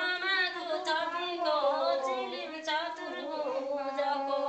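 Women singing a Nepali sangini folk song unaccompanied, the melody wavering and then settling into long held notes near the end.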